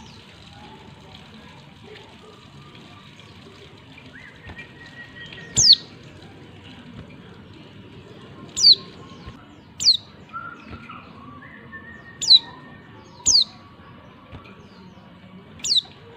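Female pleci (white-eye) giving six short, sharp, high-pitched calls, each falling quickly in pitch, spaced irregularly a second or three apart. This is the call used as a lure to get male pleci answering and singing.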